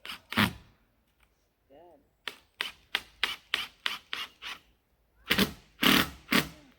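Hammer blows on wood: a run of quick light taps, about three or four a second, then a few harder, louder blows near the end.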